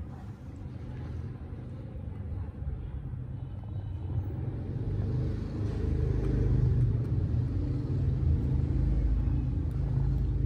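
A steady low rumble that grows louder about halfway through.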